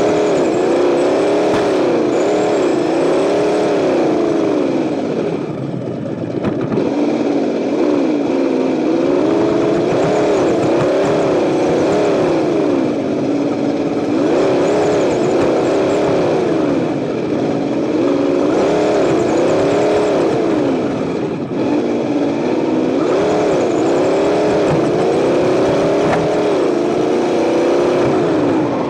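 Associated ESS-One sound unit on a Tamiya Lunch Box RC truck playing a simulated engine through its speaker, revving up and down over and over with the throttle, dipping briefly about six seconds in and again about twenty-one seconds in.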